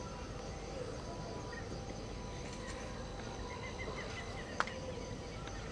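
Steady outdoor background noise with faint high chirps, and a single sharp click about four and a half seconds in.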